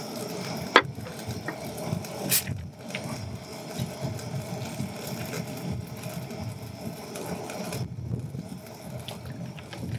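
Drink being mixed in a glass of ice: a sharp clink about a second in, a short hiss soon after, and small handling noises of a bottle over the glass, against a steady low outdoor rumble.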